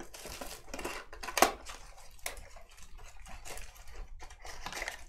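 Trading cards being handled and flipped through: a scatter of small clicks and rustles, with the sharpest click about one and a half seconds in.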